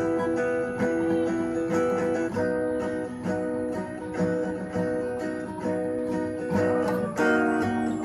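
Acoustic guitar with a capo playing strummed chords, with no singing. The chord changes about two seconds in and again near the end.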